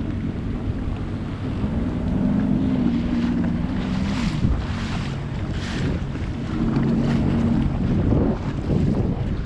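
Sea-Doo Fish Pro personal watercraft's three-cylinder 155 hp engine running under way, its note coming up twice as the throttle is opened, with water spray hissing off the hull and wind buffeting the microphone.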